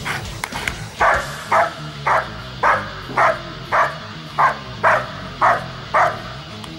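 German Shepherd Dog barking steadily at a protection helper holding a bite sleeve, about two barks a second in an even rhythm: the guarding barks of protection-sport training.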